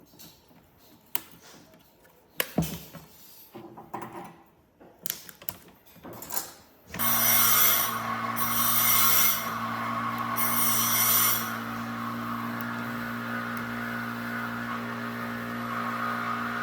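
Scattered knocks and clatters of wood and tools being handled. About seven seconds in, an electric power tool starts with a steady hum and keeps running, cutting into wood in three short loud spells.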